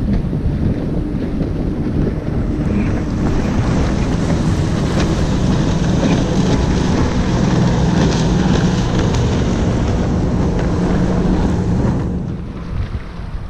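Wind buffeting the microphone, over a steady low drone of motorboat engines running through the inlet. The drone and the wind both ease off near the end.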